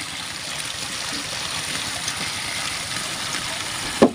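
Water running steadily as a continuous rushing hiss. It cuts off suddenly about four seconds in with a sharp knock.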